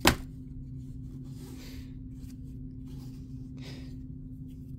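A sharp click, then a few faint, brief rustles of trading cards and booster packs being handled, over a steady low hum.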